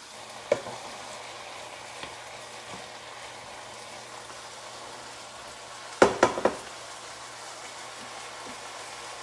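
Chicken, onions, peppers and pineapple frying in a pot with a steady sizzle. A single knock about half a second in, and a quick run of three or four sharp knocks of a utensil against the pot about six seconds in.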